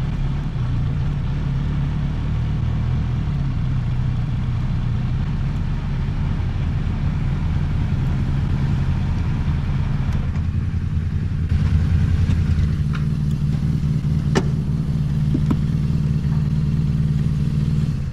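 Motorcycle engine running steadily while riding, with road and wind hiss. It gets louder for about a second around twelve seconds in, and there is a sharp click a couple of seconds later.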